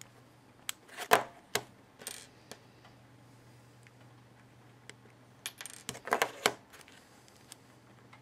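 Handling noise of a small MP3 player on a wooden tabletop: sharp clicks, taps and light knocks in two clusters, about a second in and again from about five to six and a half seconds in, over a faint steady low hum.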